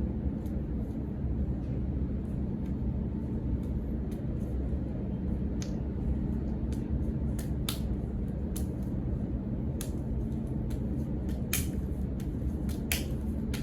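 Sharp, irregular slaps and clicks of hands and forearms meeting during martial-arts partner hand drills, a few louder strikes in the second half, over a steady low rumble.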